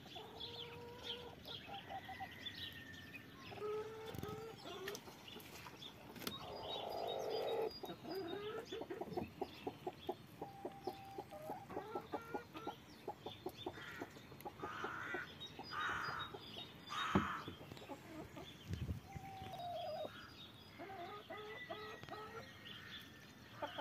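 Domestic hens clucking, with short low calls on and off throughout and a run of fast ticks through the middle.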